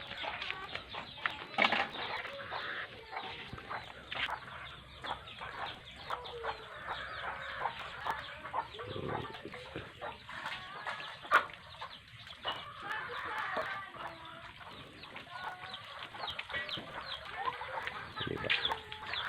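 Chickens clucking, mixed with scattered short clicks and chirps.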